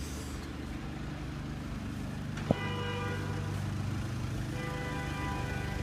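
Car engines idling in street traffic, a steady low rumble. About two and a half seconds in comes a sharp click, then two steady car-horn toots, the second longer.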